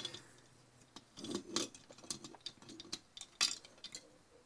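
Plastic Mega Bloks toy pieces clicking and knocking as a toy train and block crane are handled: scattered light clicks.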